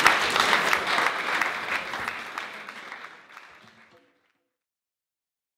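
Audience applauding, a dense patter of many hands clapping that fades out steadily and stops dead about four seconds in, leaving silence.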